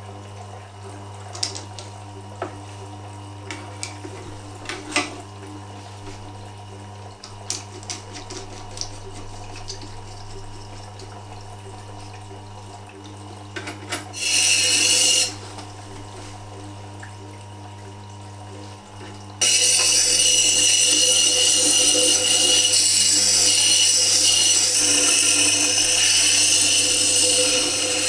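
Tormek T8 sharpening machine running, its motor humming steadily, with a few light clicks and taps. Then a chisel's steel is ground on the wet coarse diamond wheel: a short loud hissing pass about halfway through, then continuous loud rasping grinding from about two-thirds of the way on, working down a badly worn edge.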